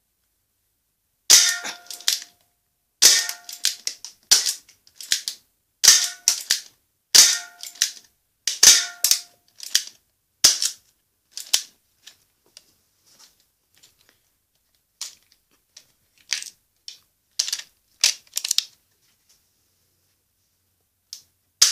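UA 937 spring-powered airsoft revolver fired at a can several times, about every second and a half. Each shot is a sharp snap with a short ringing tone. Lighter clicks of the hammer and action follow, with one last sharp click near the end.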